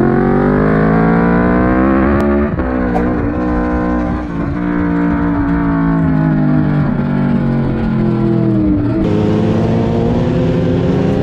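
Sportbike engines running at speed, their pitch rising and falling with the throttle, with abrupt changes about two seconds in and near the end where one riding clip cuts to the next.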